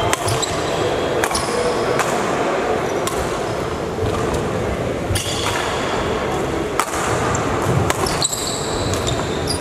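Badminton rally: rackets striking the shuttlecock, sharp hits about a second apart, then a pause and a few more hits, over a steady background of hall noise.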